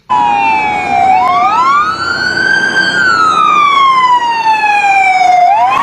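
Fire-department emergency vehicle's siren wailing loudly: the pitch falls, rises over about a second and a half, then falls slowly for about two and a half seconds before rising again near the end.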